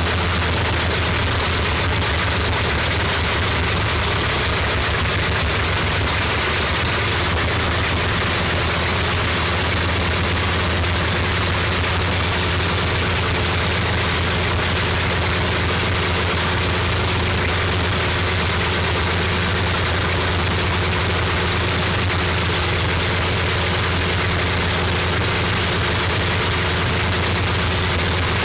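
Bristol Hercules 14-cylinder sleeve-valve radial aero engine running at a steady speed with its propeller turning, a loud, even engine sound over a deep, unchanging hum.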